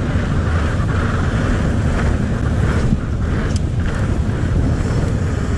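Steady rushing wind on an action camera's microphone as a mountain bike rides fast over paved paths.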